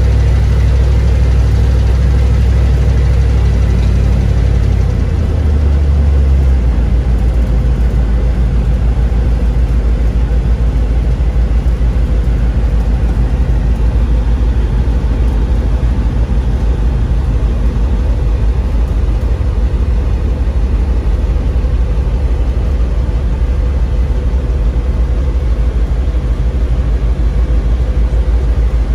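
Vehicle driving slowly on a snow-covered road, heard from inside the cab: a steady low engine and road rumble whose drone changes about six seconds in.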